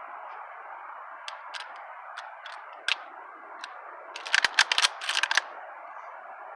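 A rapid string of about a dozen gunshots, roughly ten a second for just over a second, about four seconds in, after a few scattered single sharp cracks. A steady hiss runs underneath.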